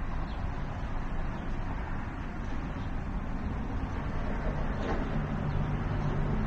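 Wind buffeting the microphone, an uneven low rush. A low steady hum comes in about five seconds in.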